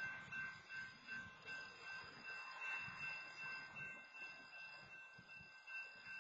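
Railroad grade-crossing warning bell ringing on and on, a faint repeating high ring over a low rumble, while a stopped freight train blocks the crossing with the gates down.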